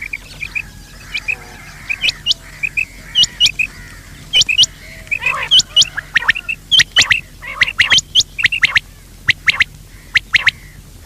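Quail calling over and over in short, sharp notes, grouped in twos and threes, some sliding steeply down in pitch, with softer, lower chirps between them. The calls grow louder and come thicker after a few seconds.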